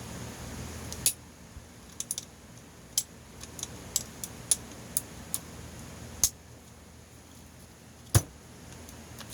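Cordless brad nailer being handled: about a dozen irregular sharp plastic-and-metal clicks as its jam-release latch and trigger are worked, with no nail fired. The tool does not work at all.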